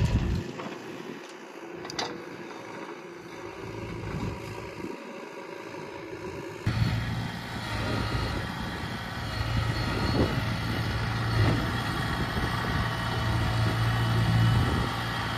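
Heavy diesel engine of the earthmoving machinery running steadily. About seven seconds in, it becomes suddenly louder, a steady low hum.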